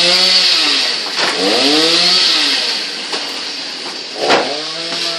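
Two-stroke chainsaw revved up and let back down about three times, its engine note rising and falling over a steady hiss.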